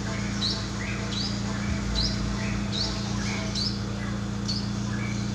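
A bird chirping repeatedly, a short rising chirp about every three-quarters of a second, over a steady low hum.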